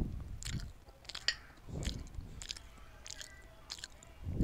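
Close-miked chewing and mouth sounds into a headset microphone: a run of short sharp clicks and crunches, with a few soft wet smacks in between.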